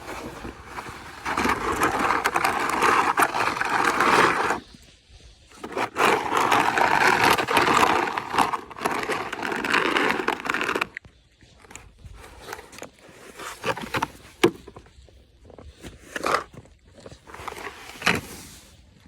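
Two long rough scraping sounds, the first about three seconds long and the second about five, followed by scattered light knocks and crunches.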